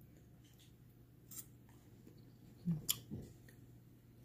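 A few faint, sharp clicks of a metal fork while eating, the loudest about three seconds in, over a steady low hum.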